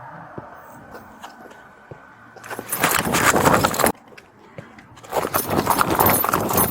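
Rustling and jangling of an officer's gear and clothing rubbing against a body-worn camera as the wearer moves, in two loud stretches: one starting about two and a half seconds in that cuts off suddenly, and another from about five seconds in.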